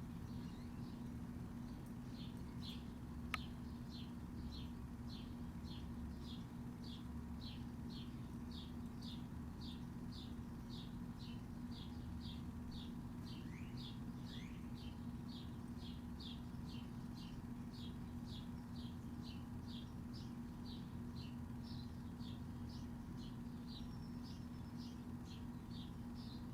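A bird chirping over and over in a steady rhythm, about two chirps a second, with a steady low hum underneath. A single sharp click sounds a few seconds in, and two brief rising whistles come about halfway through.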